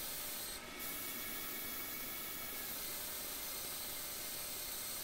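Small CNC lathe turning an aluminium velocity stack: a steady hiss from the coolant spray mister over a faint, even whine from the spindle and cut. A brief sharper hiss comes just over half a second in.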